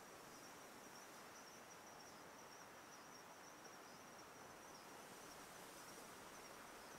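Faint outdoor ambience of insects trilling: one thin, steady high note over a soft even hiss.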